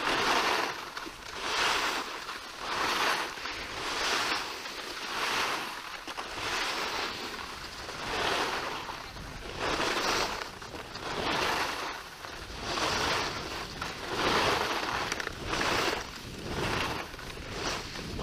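Skis scraping over packed snow in a run of linked turns: a swelling hiss about every second and a half.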